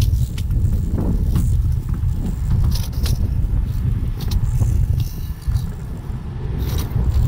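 Strong wind buffeting the microphone in a steady low rumble, with scattered sharp clicks and metal clinks from gear being handled in a tow truck's side toolbox compartment.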